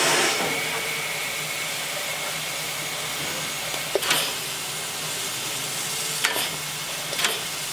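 Steam locomotive 64 518 hissing steam steadily as the tail of its steam whistle dies away at the start, with three short sharp clicks along the way.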